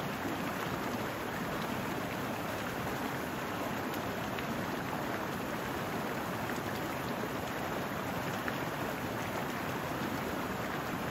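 A small brook rushing over rocks: a steady, even rush of running water.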